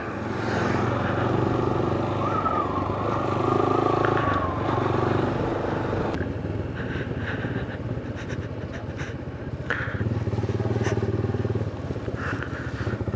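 Motorcycle engine running steadily while riding, louder in the first few seconds and quieter after about six seconds.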